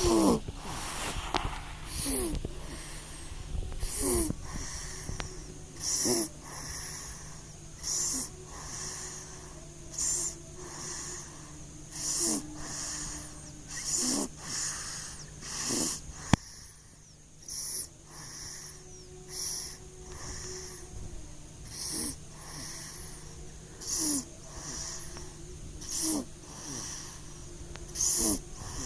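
A three-month-old baby snoring in sleep, a wheezy snore on each breath, about one breath every two seconds, each with a short squeak that falls in pitch. A single sharp click about sixteen seconds in, over a steady low hum.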